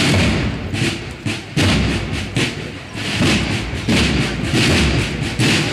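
Drum section of a bugle-and-drum band starting a processional march: heavy, even beats about every 0.8 seconds, each with a deep thud and a bright splash on top.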